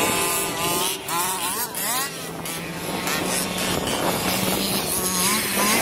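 Small two-stroke petrol engine of a 1/5-scale RC car buzzing and revving up and down in quick sweeps as the car is driven.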